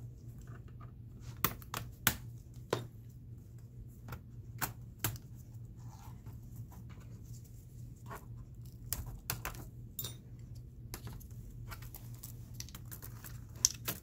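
Plastic clicks, taps and clatter of a Dell Inspiron 15-5552 laptop keyboard being unclipped from the palmrest, lifted, and its ribbon-cable latch worked with a pry tool. Scattered sharp clicks, with several loud ones close together in the first three seconds and another near the end, over a steady low hum.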